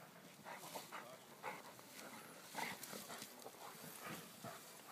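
A dog barking faintly now and then, short sounds spread out with gaps between them.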